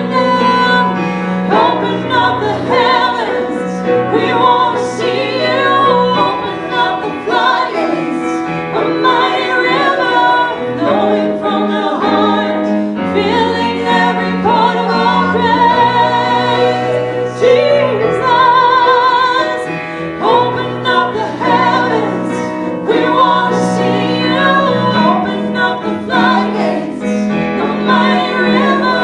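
Gospel-style singing with a choir and piano accompaniment; a solo voice with wide vibrato sings over held chords and a steady bass.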